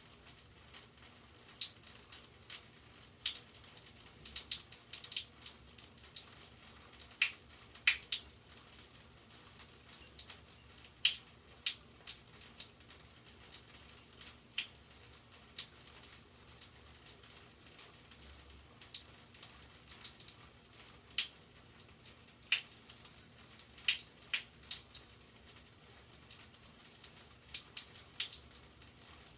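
Water dripping and trickling into a sink: irregular small plinks and splashes, several a second.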